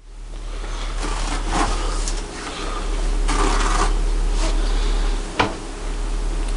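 Kitchen handling noises: rubbing and light scraping, with one sharp click about five seconds in, over a steady low hum.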